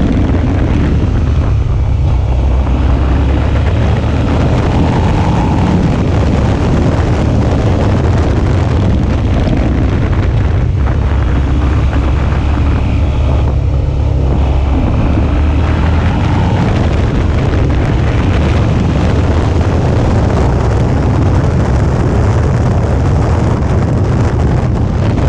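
Suzuki V-Strom 650's 645 cc V-twin engine running steadily under way, with heavy wind noise on the microphone; the sound eases briefly about two seconds in and again near the middle.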